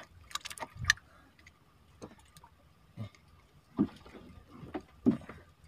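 A cluster of small clicks, then single soft thumps about once a second, as a freshly caught fish and handline are handled aboard a small boat.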